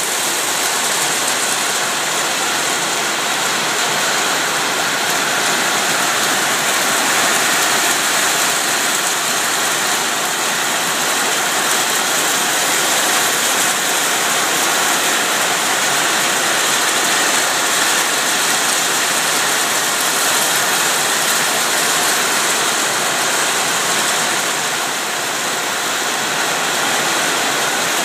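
Heavy rain pouring down steadily, a constant loud hiss of rain on paving and roofs.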